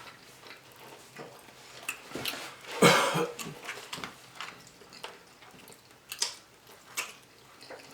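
Close-up mukbang eating sounds: chewing with scattered wet mouth clicks and lip smacks, and one louder burst about three seconds in.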